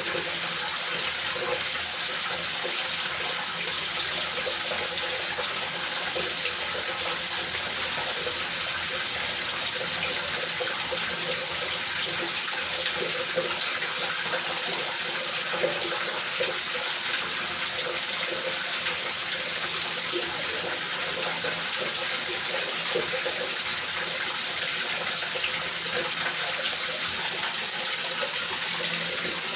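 Steady, even rain: a continuous hiss of falling rain with faint scattered patter.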